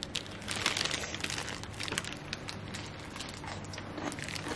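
Crisp, rapid crunching of well-fermented kimchi being chewed.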